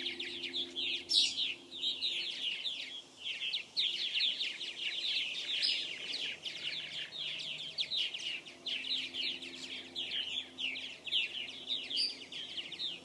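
A colony of purple martins calling, many birds at once in a dense, continuous chatter of quick notes.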